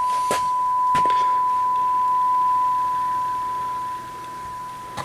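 Steady high-pitched test tone from a Kenwood TM-621A's speaker, the signal generator's tone received on the 220 MHz band at −78 dBm: the receiver, its first RF amplifier replaced, is working again. Two short clicks come in the first second, and the tone gets quieter about four seconds in.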